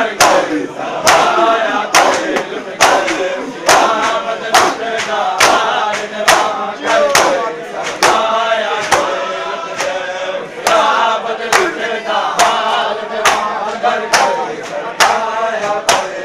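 Matam: a group of men beating their bare chests with open hands in unison, sharp slaps on a steady beat a little faster than once a second, while the crowd chants a mourning noha in time with the strokes.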